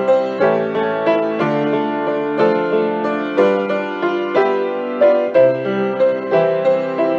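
Piano music: slow chords struck about once or twice a second and left to ring.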